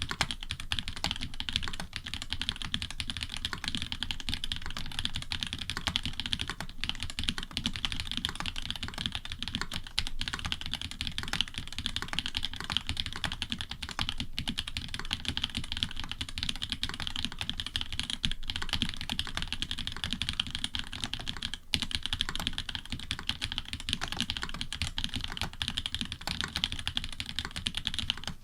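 Fast continuous typing on an Orion v2.5 custom mechanical keyboard with hybrid switches (Cherry bottom housings with NovelKeys Cream tops and stems), FR4 plate, plate foam and GMK keycaps: a dense run of keystroke clacks.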